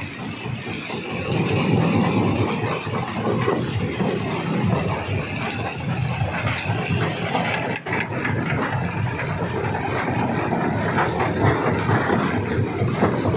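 Stone crusher running and crushing rock: a dense, continuous rumble and clatter of many small impacts. It grows louder about a second and a half in, with a brief drop about eight seconds in.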